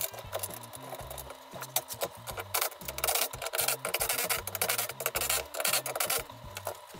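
Rubbing and scraping from gaming chair parts being handled during assembly, loudest from about two and a half to six seconds in. Background music with a steady bassline plays underneath.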